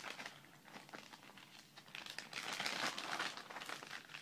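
Clear plastic bag crinkling as it is handled and opened, a rapid scatter of crackles that gets busier and louder about halfway through.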